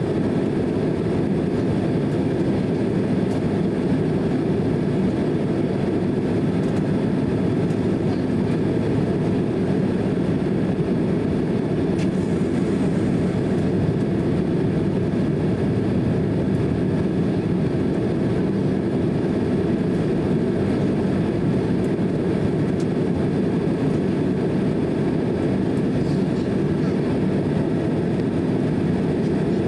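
Steady low rumble of cabin noise inside a Boeing 767-300 airliner during pushback, even and unchanging throughout.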